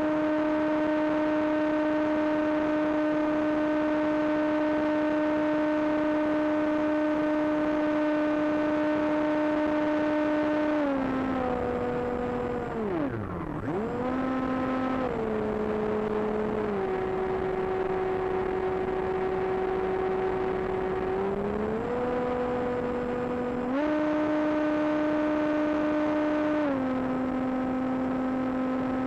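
Brushless electric motor and propeller of an AXN Floater Jet foam plane, heard from on board: a steady high whine over a rush of air. Its pitch steps down and back up with the throttle, dropping sharply for a moment about 13 seconds in and stepping back up in two steps at about 22 and 24 seconds, then easing down again near the end.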